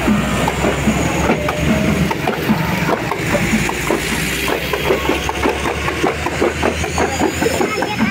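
Hand drums beaten in quick, irregular strokes while a vehicle engine runs with a steady low hum alongside.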